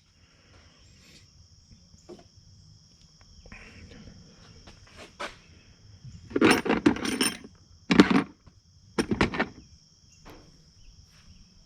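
Metal hand tools clattering and clinking in three short bursts between about six and nine and a half seconds in, as wrenches are rummaged through. Under it runs a faint, steady high-pitched drone.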